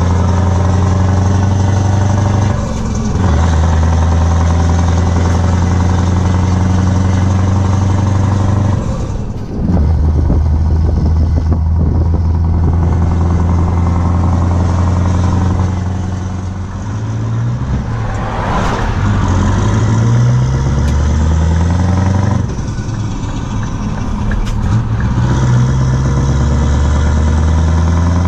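Scania R500's V8 diesel with straight open exhaust pipes, running under load as heard inside the cab. The deep engine note dips briefly at several gear changes. In the second half it climbs in short rising steps through a run of upshifts.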